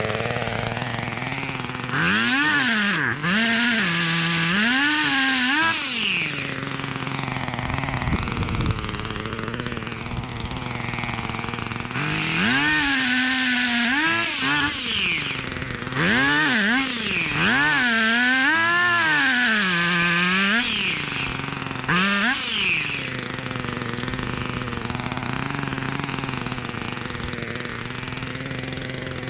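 An engine runs with a steady hum and is revved up and down in several surges, some a few seconds long.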